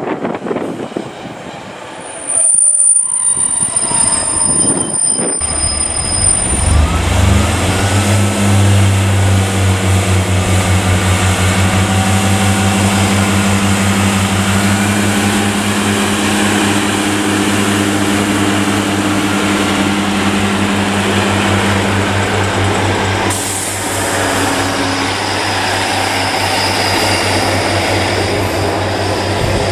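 Diesel passenger train running close past the platform: a high thin wheel squeal for the first few seconds, then a steady low engine drone over wheel and rail noise, with a short hiss about three quarters through.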